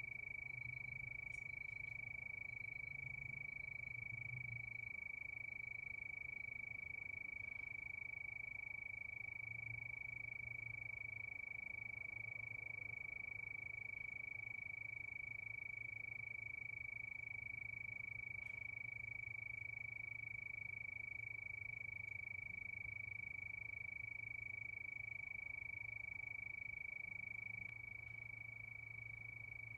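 Night chorus of crickets: a steady, unbroken high-pitched trill, with a soft low hum underneath.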